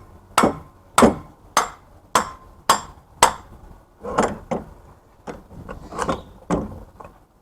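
A hammer striking a scrap electric motor to knock a part off: six sharp metal blows about two a second, each with a short ring, then several softer, uneven knocks.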